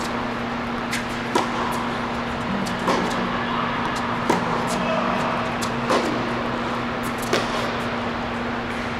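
Tennis rally: racquets striking the ball back and forth, a sharp pop about every one and a half seconds, the loudest about four seconds in. A steady low hum runs underneath.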